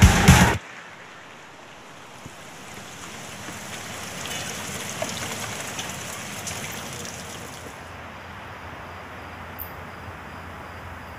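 Music stops abruptly about half a second in, giving way to a steady hiss of falling rain that swells a little and then holds.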